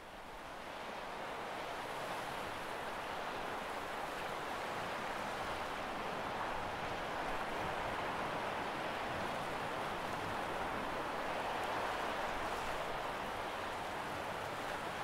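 Steady rushing noise of rough ocean waves and spray, fading in over the first couple of seconds.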